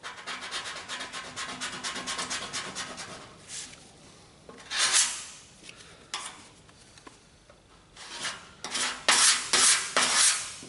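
Half-set body filler on a car fender being cut back by hand with an abrasive block: quick rasping strokes for the first few seconds, then a few separate louder strokes, a short lull, and another run of strokes near the end.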